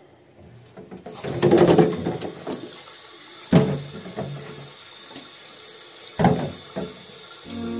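Thin stream of water running from a single-lever mixer tap into a washbasin drain after the lever is lifted; the weak flow comes from a clogged tap and supply hoses. Two sharp knocks come in the middle, and acoustic guitar music starts at the very end.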